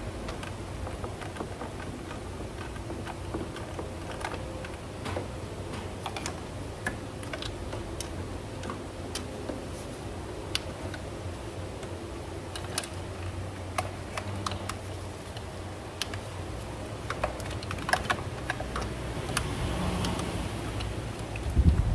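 Irregular small clicks and taps of plastic connectors, hoses and small parts being handled and unplugged on top of a BMW N54 engine, over a steady low hum. A louder thump comes near the end.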